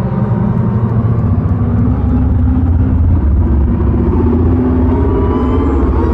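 Loud, deep rumbling drone from a concert sound system, with thin high tones sliding upward near the end.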